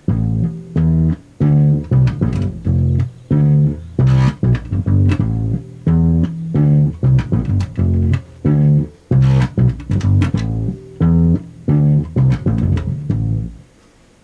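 Stagg electric upright bass plucked with the fingers, playing a steady bass line of separate low notes at about two a second. It stops shortly before the end.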